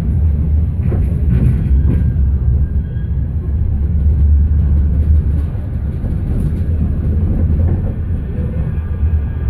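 Manchester Metrolink tram running along street track, heard from inside the car: a steady, loud low rumble of wheels on rail and running gear, with a few faint clicks early in the ride.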